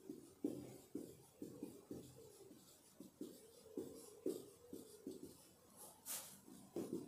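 Faint scratching of writing by hand, a string of short strokes about two a second.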